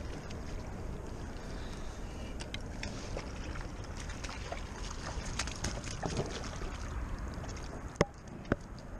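Wind and water noise around a fishing kayak, with light scattered clicks of gear being handled and two sharp knocks about half a second apart near the end.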